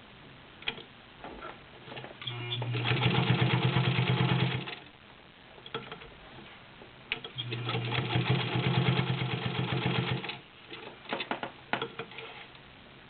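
Good Housekeeper Class 15 clone straight-stitch sewing machine sewing through ten layers of stiff upholstery fabric in two runs of two to three seconds each: a steady motor hum under a rapid needle clatter. There are a few clicks and handling sounds between the runs and after them.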